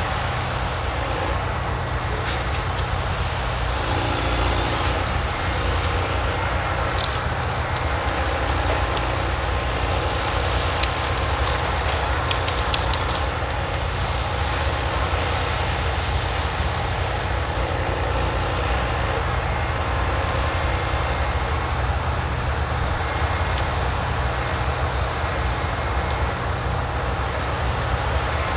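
Rottne Rapid two-grip forestry harvester's diesel engine running steadily as its crane and head handle a felled tree, with scattered sharp clicks in the middle stretch.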